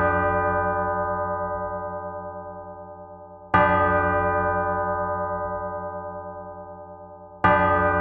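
A large church bell tolling the hour in single slow strokes, one about every four seconds, as part of twelve strokes for noon or midnight. Two strokes fall about three and a half seconds in and near the end; each rings on and dies away slowly with a pulsing hum.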